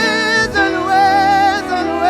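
Live band music: a melody line of long held notes with a wide vibrato over a steady backing, with a short break between phrases about half a second in.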